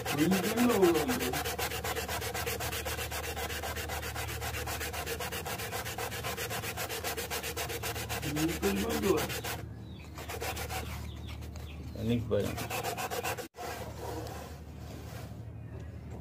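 Sandpaper rubbed rapidly back and forth by hand over a small pine block: a fast, even scratching that stops about ten seconds in. A short rising-and-falling tone sounds three times over it.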